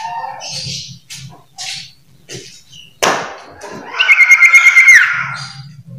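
Iora (sirtu/cipoh) singing: short chirps and harsh notes, then about four seconds in a loud whistled note held for about a second that drops in pitch at its end.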